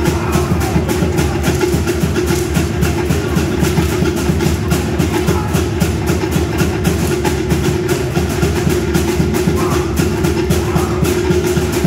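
Fast, driving drumbeat of Samoan dance music, a rapid, even beat over a steady low hum.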